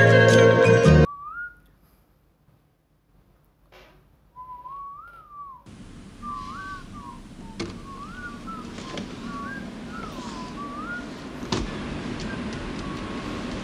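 A person whistling a short tune, the same few gliding phrases repeated, starting after a brief music passage cuts off about a second in. There is a single thump near the end.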